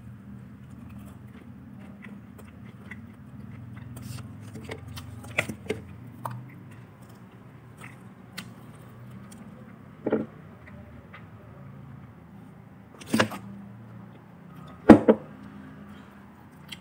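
Quiet eating at a table: a low steady room hum with scattered short clicks and knocks from fried chicken and small plastic sauce cups being handled, the loudest knock about fifteen seconds in.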